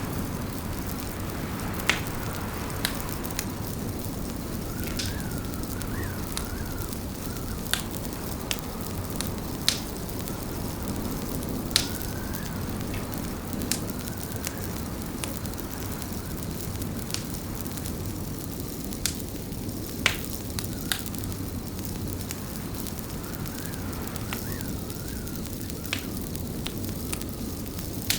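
Fireplace fire crackling: sharp pops every couple of seconds over a steady low rumble of flame, with a faint wavering whistle now and then.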